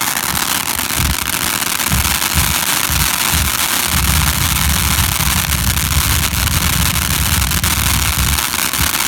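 Fireworks going off, a dense steady hissing crackle with irregular low thumps that run together into a continuous rumble for a few seconds in the middle.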